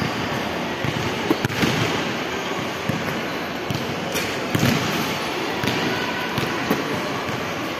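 A basketball bouncing on a hard tiled floor in a large hall, about a dozen thumps at irregular intervals over steady background noise.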